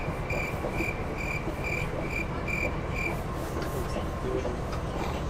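Steady rumble and running noise inside a moving passenger train carriage. A high-pitched beep repeats about twice a second, eight times or so, and stops about three seconds in.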